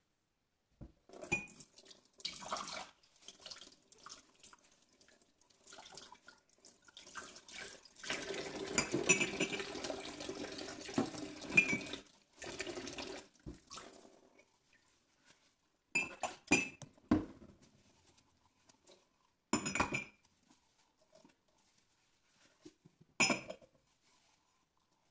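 Ceramic mugs being washed by hand in a stainless steel sink. Tap water runs on and off, most steadily for a few seconds in the middle, then several sharp clinks of mugs knocking against the sink and each other.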